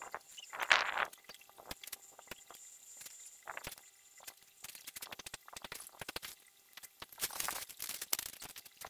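Tomato plants being pulled from their pots and handled: leaves and stems rustling and crackling in a string of short, irregular rustles, loudest about a second in and again around seven to eight seconds in.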